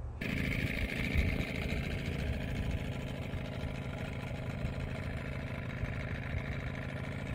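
A 1982 Evinrude 15 hp two-cylinder two-stroke outboard motor running steadily on a small inflatable boat, which the owner says is still not running right.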